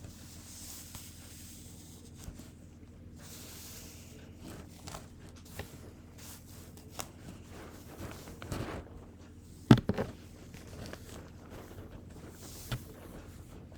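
An iron pressed and drawn along hair, close-miked: soft rustling hiss with scattered small taps and clicks, and one sharp click about ten seconds in.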